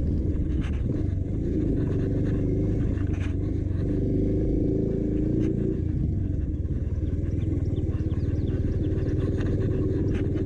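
Motorcycle engine running while riding along a rough dirt track, its pitch shifting with the throttle, with a few brief knocks from bumps.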